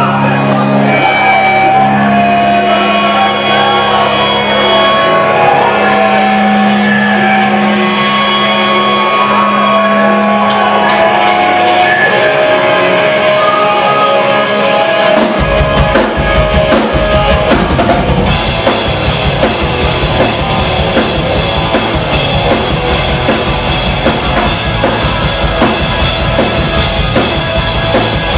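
Live rock band playing a song's opening: held guitar chords and a melodic line at first, cymbal strokes come in about ten seconds in, and the full band with drums and bass kicks in about fifteen seconds in.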